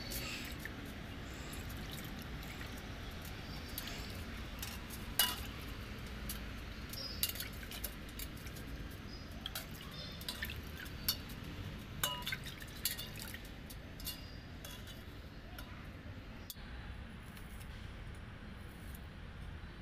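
Water sloshing and dripping as a steel cutting blade (arivalmanai) is rubbed clean by hand in a steel pot of water, with irregular sharp metal clinks of the blade against the pot, most of them in the middle of the stretch.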